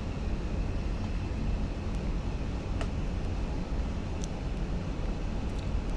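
Central air conditioning blowing steadily from a vent: an even low rushing hum with a faint high whine, and a couple of faint clicks.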